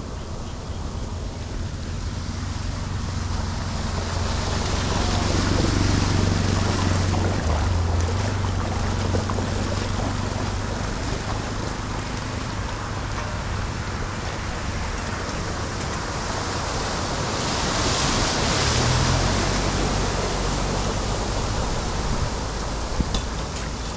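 Floodwater washing over a road, with wind buffeting the microphone. Twice a motor vehicle drives past through the water, its engine and tyre spray swelling up and fading away, the first peaking about six seconds in and the second around eighteen seconds in.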